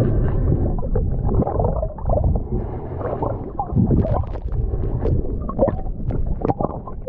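Muffled underwater gurgling and sloshing of water heard by a camera held below the ocean surface, with scattered sharp clicks and knocks.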